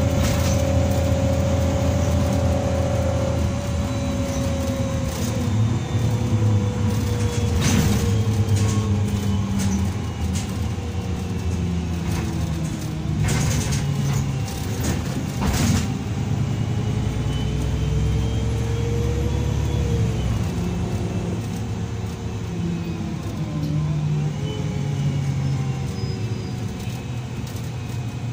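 Karosa B 961E articulated city bus heard from inside the passenger cabin while under way. The diesel engine runs with a drivetrain whine that falls and rises in pitch as the bus slows and speeds up. A few sharp knocks and rattles come from the body about a third of the way in and near the middle.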